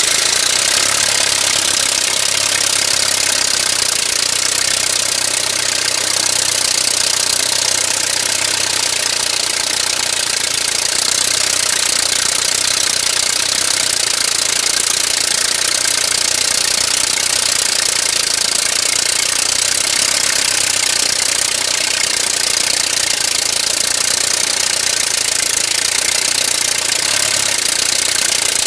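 The reproduction Wright four-cylinder engine of a 1908 Wright Military Flyer running steadily, loud and unbroken, with its propellers turning.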